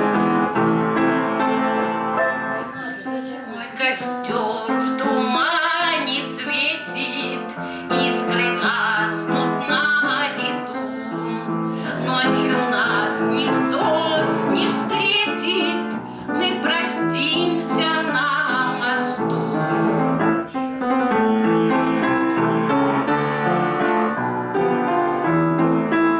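Music: piano with a woman singing over it.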